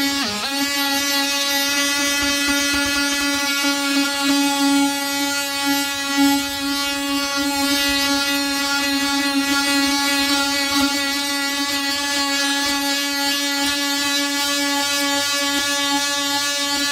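DeWalt cordless brushless triangular-pad sander running steadily against the painted steel side panel of a van, sanding down a dent: a loud, even buzzing hum.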